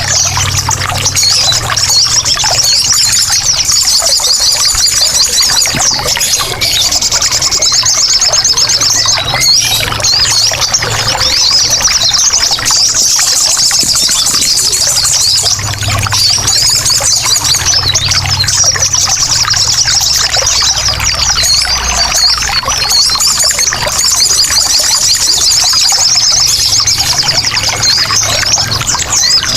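Sogon birds chattering and trilling without pause in rapid high-pitched runs, over trickling water, with a steady low hum beneath.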